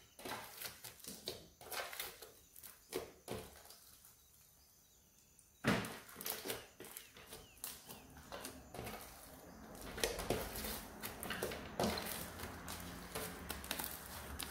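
Sticky glitter slime being pressed and kneaded by hand: a run of wet clicks and little crackling pops, a short lull, then a sharp pop and denser crackling as the slime is stretched apart.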